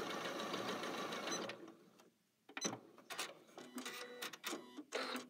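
Janome Skyline S7 computerized sewing machine stitching a blind hem, running steadily and stopping about a second and a half in. Then a string of short clicks and rustles.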